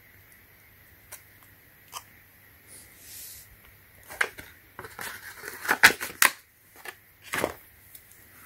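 Clear plastic blister packaging and a glue tube being handled: a few separate clicks, then a run of sharp crackles and clicks, loudest about six seconds in, as the tube of Barge cement is pushed back into its plastic shell.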